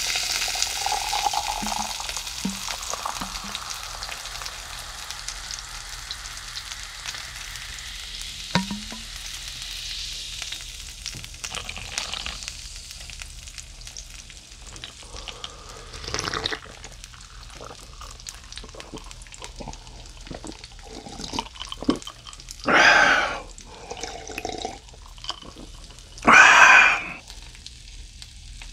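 A fizzy cola-like soda is poured over ice into a glass, hissing loudly as it foams. The fizz fades away over the first several seconds. Later come a few short, loud sounds, the loudest two near the end.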